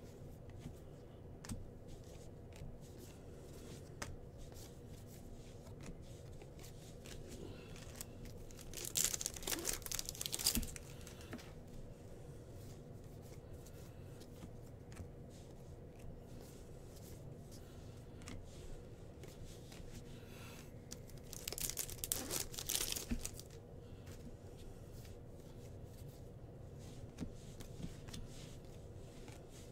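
Bowman baseball card packs being torn open: two bursts of wrapper tearing and crinkling, each lasting a couple of seconds, about a third of the way in and again about three quarters of the way in. Quiet handling of cards with light clicks in between, over a faint steady hum.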